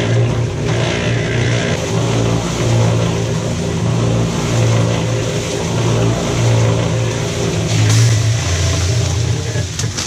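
Portable cement mixer running, its drum turning with concrete tumbling inside. The steady motor hum swells and fades in a regular cycle about every second and a half.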